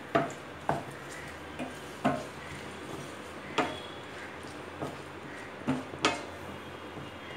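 Wooden spatula stirring spice-coated raw banana pieces in a stainless steel pan, knocking and scraping against the pan about eight times at uneven intervals, mixing the spices in before the pan is left to simmer.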